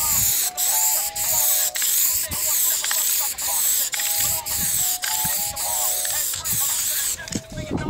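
Aerosol spray paint can spraying silver chrome paint onto a rough wall, a steady hiss broken by brief stops every half second or so, cutting out about seven seconds in. Background music with a simple melody plays under it.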